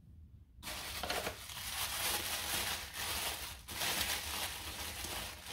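Black tissue paper crinkling and rustling as hands unwrap an item packed in it, starting about half a second in and continuing as a dense, crackly rustle.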